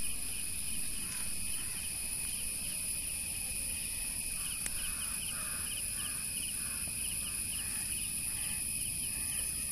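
Insect chorus: a steady, high-pitched shrill with a chirp that repeats at an even pace, over a low, steady rumble.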